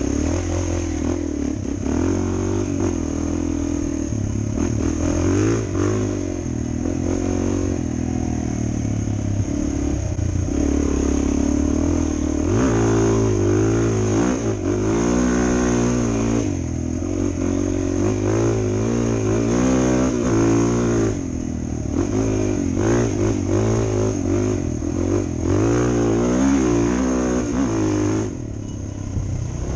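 Suzuki DR-Z400 dual-sport motorcycle's single-cylinder four-stroke engine under way, its pitch rising and falling as the throttle is opened and closed through the gears. It dips briefly twice, about two-thirds through and near the end.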